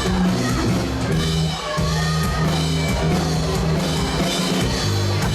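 A live rock band playing: electric guitars, bass guitar and drum kit, with bass notes that change every half second or so under the guitars.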